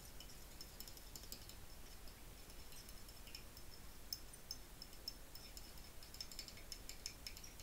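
Faint, scattered light clicks and taps of small plastic and glass containers being handled, with a cluster of quick clicks late on.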